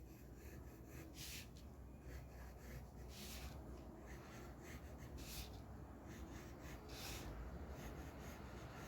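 Faint pencil strokes scratching on paper while sketching: four short scratches about two seconds apart.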